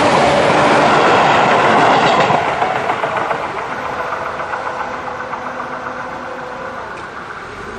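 Tobu Urban Park Line electric train passing over a level crossing, wheels clattering on the rail joints. It is loud for about the first two seconds, then fades as it pulls away. Steady pulsing tones of the crossing's slow 'pon-pon' electronic warning sound carry on beneath.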